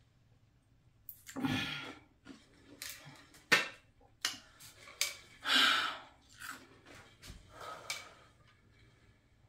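A woman's heavy breathing: a few long breaths out, interrupted by short clicks and knocks from a plastic water bottle's lid being closed and handled, with one sharp click midway the loudest sound.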